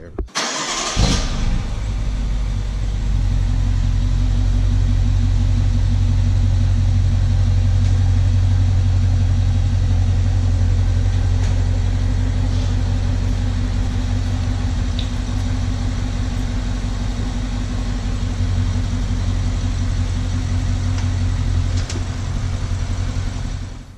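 BMW X5 SUV's engine starting about a second in and then idling steadily, with a low, even pulsing.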